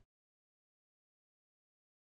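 Complete silence: no sound at all on the audio track.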